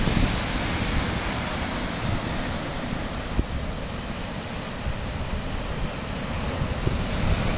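Heavy sea surf breaking and churning over rocks, with gusty wind buffeting the microphone; the rush eases in the middle and swells again near the end.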